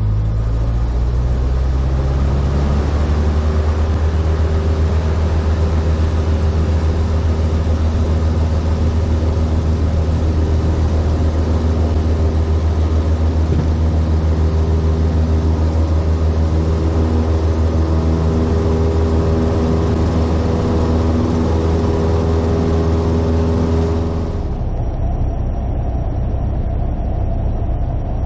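Cessna 172's piston engine and propeller from inside the cockpit, rising to full take-off power in the first couple of seconds and running steady at full throttle through the take-off run and climb. About 24 seconds in, the sound switches abruptly to the engine at a lower, quieter power setting on approach, with a thin steady high tone over it.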